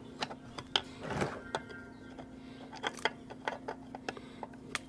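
Irregular metal clicks and ticks of a screwdriver tightening the gear-case drain and vent screws on a Yamaha 70 hp outboard's lower unit, a few a second, with a short scrape about a second in. A faint steady hum runs underneath.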